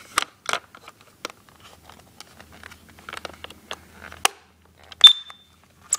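Plastic clicks and knocks from handling a Kidde NightHawk detector while its batteries are fitted, then about five seconds in a single short, loud, high-pitched beep from its horn as it powers up.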